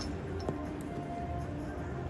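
Background music with steady held notes, and a single faint tap about half a second in.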